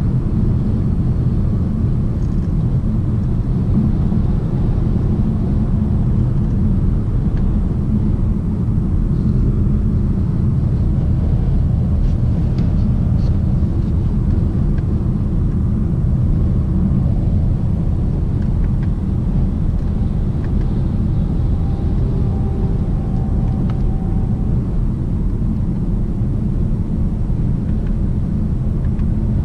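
Steady low rumble of road, tyre and engine noise inside the cabin of a BMW 750d xDrive cruising on the motorway, its quad-turbo 3.0-litre straight-six diesel running evenly with no change in revs.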